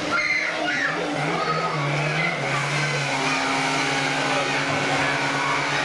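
An engine running at a steady speed, its pitch dipping and rising again about two seconds in, then holding steady.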